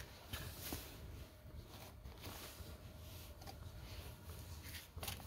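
Quiet rustling and a few light clicks of small items and a metal box being handled, over a faint steady low hum.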